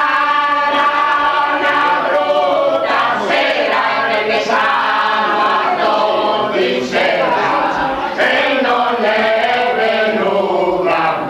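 A small group of men and women singing loudly together, holding long notes.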